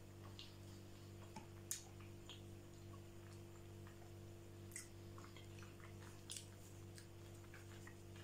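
Quiet close-miked chewing of sushi rolls: soft wet mouth clicks, with three sharper clicks about 2, 5 and 6 seconds in. A steady low hum runs underneath.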